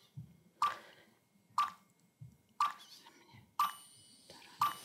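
Game-show countdown timer ticking about once a second. Each tick is a short pitched blip that dies away quickly, marking the seconds left to answer.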